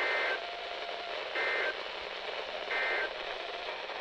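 NOAA Weather Radio EAS/SAME end-of-message code: three short two-tone digital data bursts, each about a third of a second, roughly 1.3 s apart, over radio static hiss. It marks the end of the warning broadcast.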